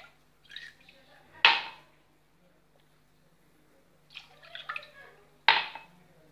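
Milk poured from a drinking glass into a stainless steel pan holding eggs and a wire whisk, with a few sharp knocks of glassware being handled, the loudest about a second and a half in and again near the end.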